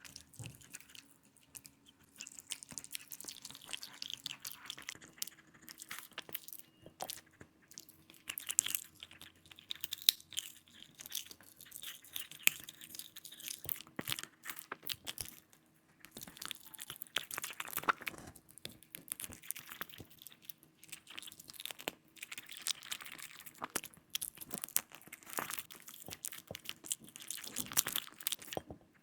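A dog crunching and chewing chicken and broccoli close to the microphone, in irregular bites with a short pause about halfway through.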